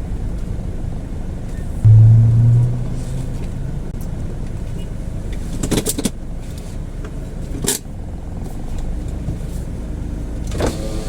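Car engine running steadily with a low rumble. About two seconds in, a loud low drone sounds for under a second. Two sharp clicks come near the middle.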